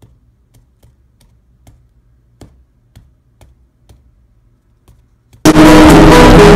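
Light, scattered taps and clicks of a plastic coffee pod and hand against a tabletop while crumbling cake. About five seconds in, a very loud, distorted blast of sound with a few steady tones cuts in for about a second.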